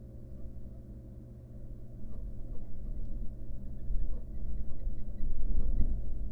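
Steady low hum from a barn owl nest-box camera's microphone. Scuffing and bumping in the nest box grow louder from about two seconds in, loudest near the end, as the barn owl shifts about on the nest floor.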